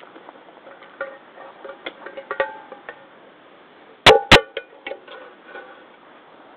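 Wet rubber fishing waders squeaking and creaking as the rubber legs flex and rub, with short squeaks and small clicks, then two loud squeaks in quick succession about four seconds in.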